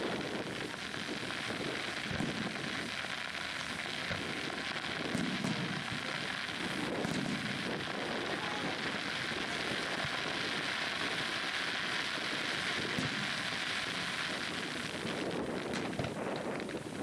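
Fireworks crackling steadily overhead: a dense, rain-like hiss of many small crackling stars. Wind buffets the microphone at times, and near the end sharper pops come in as new shells burst.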